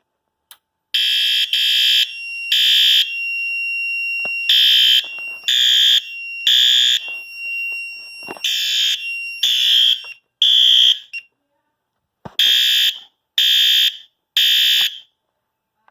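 Fire alarm horn strobe on its high-volume setting, sounding the temporal code-3 evacuation pattern: four rounds of three half-second horn blasts, each round followed by a pause. A fainter steady tone runs beneath the first three rounds and stops about eleven seconds in.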